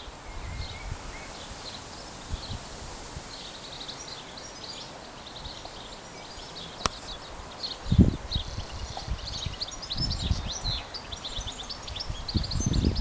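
Small birds chirping and singing in quick high calls throughout. A few low thumps break in, the loudest about eight seconds in and more near the end.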